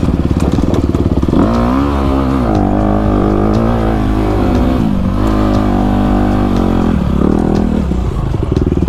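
Honda CRF250RX's 250 cc single-cylinder four-stroke engine running under way on a dirt trail, its pitch rising and falling as the throttle is worked, then settling lower near the end as the bike slows.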